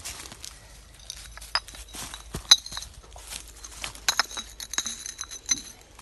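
Pieces of a broken glass bottle clinking together and against stones, several clinks ringing briefly, with crunching of dry leaves and gravel.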